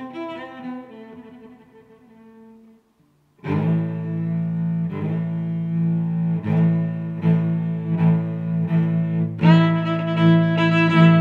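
Background music: one piece fades out over the first few seconds, and after a moment's silence a new piece starts with long sustained low notes, restruck about once a second, growing louder near the end.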